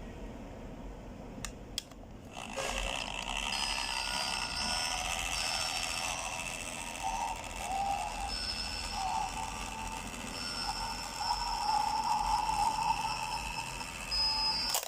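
Battery-powered cat-in-a-box coin bank toy: two clicks, then about twelve seconds of its electronic sound with wavering high tones over a mechanism, ending with a click.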